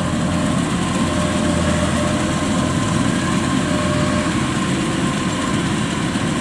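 Kubota DC-93 crawler combine harvester's diesel engine and machinery running steadily as it cuts rice: an even drone with a faint steady whine above it.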